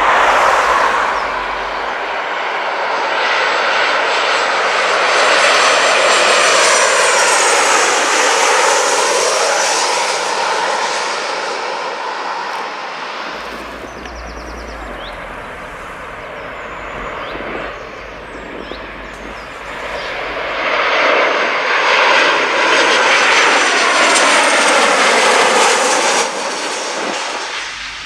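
Ryanair Boeing 737 on landing approach passing low overhead, its jet engine noise swelling to a loud rushing peak with a sweeping, shifting tone, then fading. About twenty seconds in, a second jet airliner on approach passes the same way.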